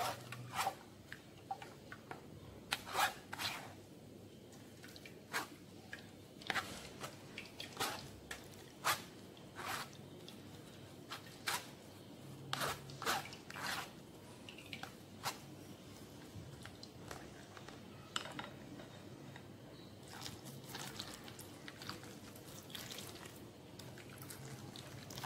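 A plastic spoon stirring and pressing wet ground almond paste through a stainless-steel mesh strainer, making short, irregular scrapes and clicks against the mesh as the almond milk is strained out.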